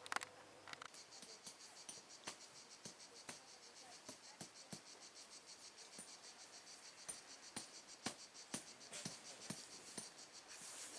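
Faint high insect chirping, steady and finely pulsed, starting about a second in, with scattered sharp clicks and taps throughout.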